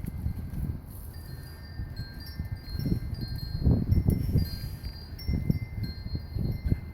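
Wind chime ringing, with several clear high tones struck at different moments and held. Over it come irregular low rumbling and bumping noises close to the microphone.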